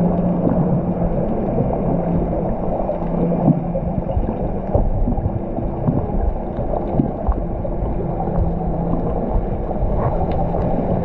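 Underwater ambience picked up by the camera: a steady low rumble with a hum that comes and goes, typical of charter boat engines carried through the water, and a few scattered small clicks.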